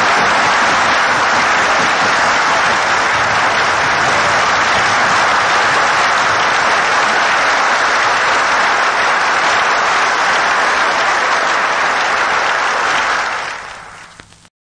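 Assembly of deputies applauding, a steady wash of clapping that fades out near the end.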